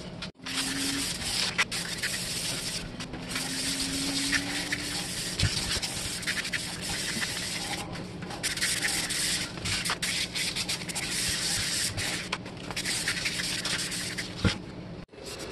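Hand sanding of a grey-coated cast iron casting with a sanding sponge: gritty rubbing strokes in long runs broken by short pauses.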